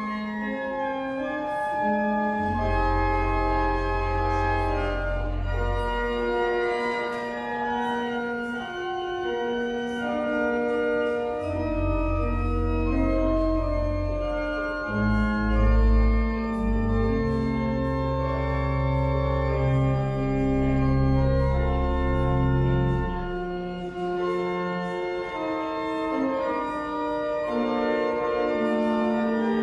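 Church organ playing the closing voluntary: held chords that change every second or two, with deep pedal notes coming in for stretches and dropping out again.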